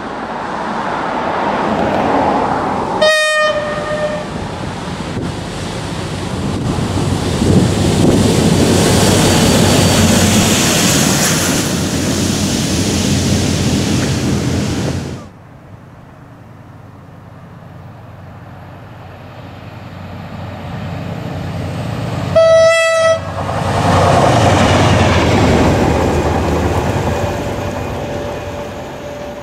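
NIR 111 Class diesel locomotive sounding a short horn blast as it approaches and then passing close by with its engine and wheels running loud. After a sudden break, a second pass follows, again with a short horn blast before the locomotive runs by.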